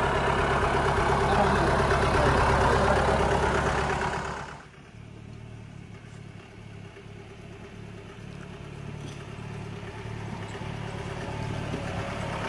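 Mahindra 4x4 jeep's diesel engine running loud, then dropping suddenly about four and a half seconds in to a quieter, steady low hum that slowly grows louder again.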